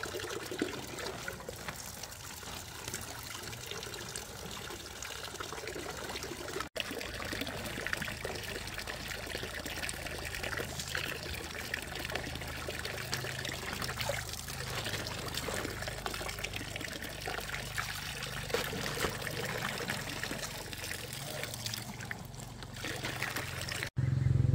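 Water from a hose tap trickling and pouring into a plastic-lined pit; after a cut, live fish splash in the shallow water of the tarp pool.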